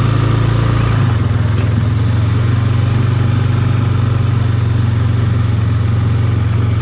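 2009 Honda Rancher ATV's single-cylinder four-stroke engine running steadily while riding at low speed. Its note shifts slightly about a second in.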